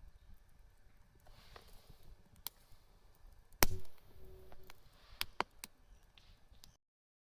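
Scattered sharp knocks and clicks of hard objects being handled, with one much louder knock about three and a half seconds in; the sound cuts off abruptly near the end.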